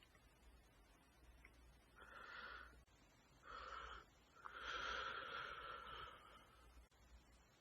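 Faint sneezing: three breathy bursts, short ones about two and three and a half seconds in, then a longer one lasting about a second and a half.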